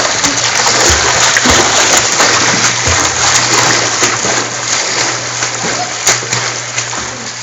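Pool water splashing as a swimmer kicks and strokes through it, a continuous churning splash.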